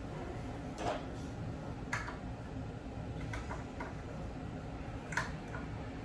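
Light clicks and knocks of flat-pack furniture being assembled, about five spread over a few seconds, over a steady low background noise.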